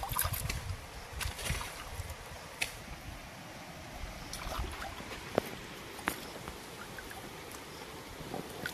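Small fish being washed by hand in pond water: light splashing and sloshing, with a few short sharp clicks of fish and hands against steel dishes.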